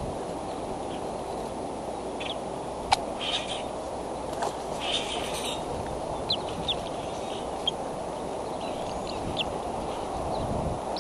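Steady low outdoor rushing noise with scattered short, high bird chirps and a few sharp ticks; the loudest tick comes about three seconds in.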